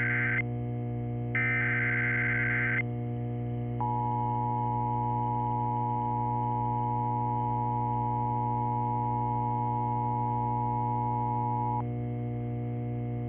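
Emergency Alert System SAME header: the end of one short burst of warbling data tones, then one full burst about a second and a half later. After a short pause comes the two-tone EAS attention signal, a steady dual tone lasting about eight seconds, which announces an emergency alert. A steady low hum runs underneath.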